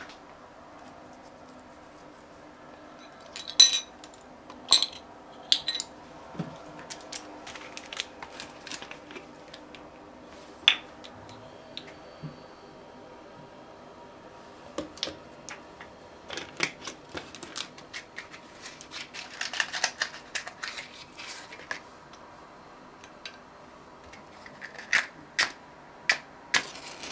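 Irregular sharp clicks and light metallic taps around a small alcohol stove and pot, over a faint steady background. The louder ones come a few seconds in and again in a cluster near the end.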